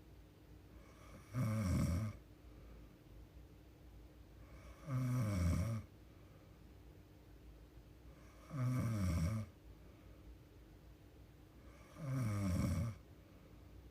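A young woman snoring in her sleep: four snores, each under a second long, coming about every three and a half seconds.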